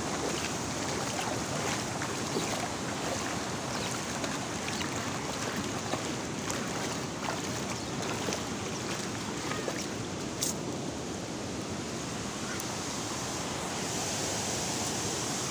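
Bare feet wading and splashing through shallow muddy water, over a steady rushing hiss with faint scattered ticks.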